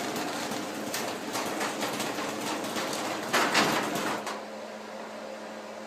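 Stanley 1/3 horsepower Deluxe chain-drive garage door opener running the door, its chain making a little extra noise. It gets louder about three and a half seconds in, then the run stops about four seconds in, leaving a low steady hum.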